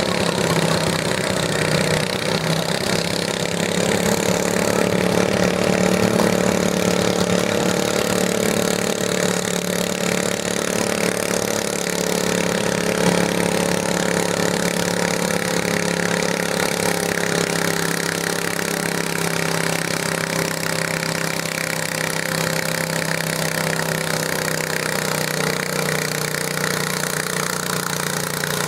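Garden tractor engine running steadily.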